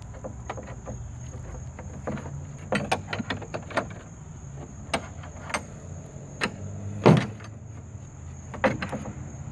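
Irregular metal clinks and knocks as a round metal bar is worked into a hole in a homemade ramp's metal bracket and the wooden ramp boards shift against the truck tailgate; the loudest knock comes about seven seconds in.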